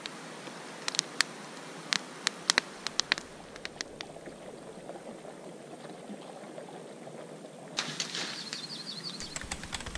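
Wood campfire crackling, with sharp snaps and pops over a low steady hiss for the first few seconds. Near the end a short high trill and a low rumble come in.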